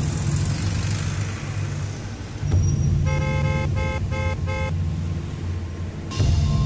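Steady low engine and road rumble of a car being driven, heard from inside the cabin. About three seconds in, a car horn toots in four or five quick short blasts.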